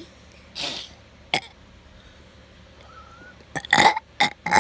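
A young child's deliberate burps: a few short, throaty sounds, the loudest cluster near the end.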